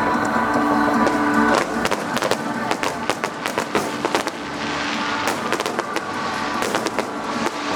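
Fireworks going off in quick clusters of sharp bangs and crackles, over music playing throughout.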